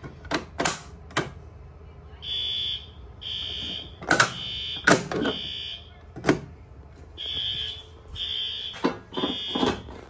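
Fire alarm horns sounding a drill evacuation signal after a pull station is activated: short, high-pitched blasts about once a second in groups of three with a pause between, starting about two seconds in. Several sharp knocks and clicks come through over the alarm.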